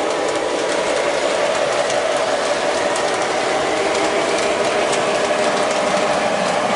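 Lionel O-gauge model train running on its track: a steady rolling rumble from the aluminum passenger cars' wheels as they pass, with faint light clicks.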